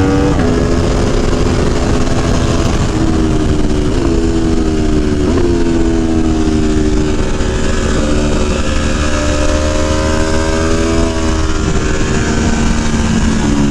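Aprilia Tuono V4 1100's V4 engine running hard at speed, its pitch rising and dropping several times, over a steady rush of noise.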